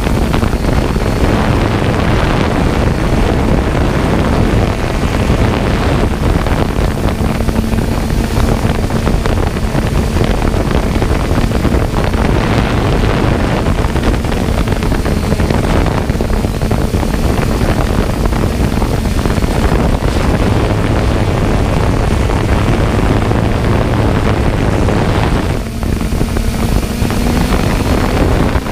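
Loud steady rushing noise with a low hum that wavers slightly in pitch: wind on the microphone over a running motor.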